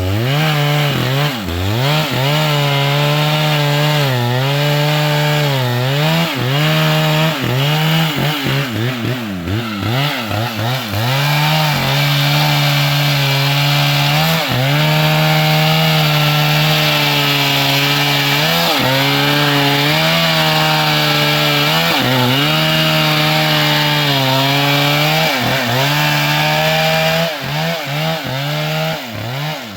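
Large two-stroke chainsaw cutting wood at high revs, its pitch sagging and recovering every second or two as the chain loads up in the cut. Near the end the revs fall and rise unevenly.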